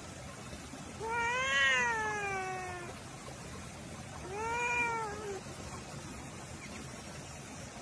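Cat meowing twice: a long meow that rises and then falls away, then a shorter one a couple of seconds later.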